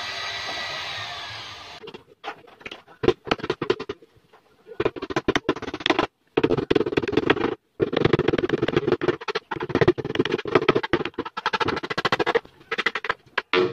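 A power tool's motor whines steadily and winds down to a stop over the first two seconds. It is followed by rapid, irregular tapping and knocking of hand work in wood, in quick runs with brief pauses.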